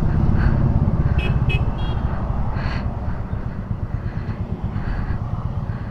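Royal Enfield Meteor 350's single-cylinder engine running steadily with a low, rapid pulsing note while riding in traffic. A vehicle horn gives a few short toots about a second in.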